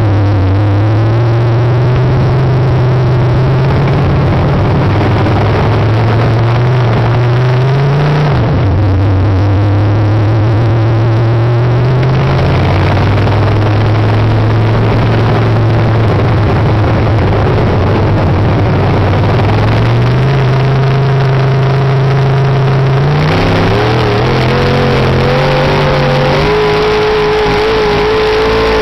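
Race car engines running hard, the engine note climbing steadily for several seconds and then dropping sharply, again and again, as the cars accelerate and lift. Near the end a second, higher engine note joins in.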